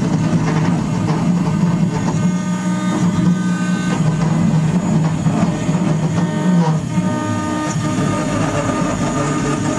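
CNC wood router running as it carves wood, a steady mechanical noise with humming motor tones.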